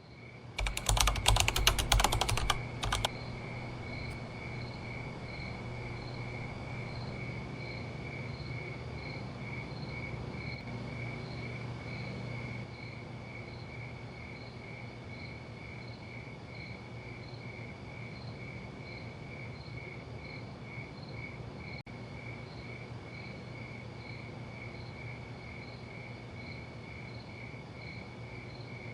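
An insect, cricket-like, calling in a steady pulsed chirp, a little over two pulses a second, over a low steady background hum. For about the first three seconds a dense crackling, clicking noise is louder than the call.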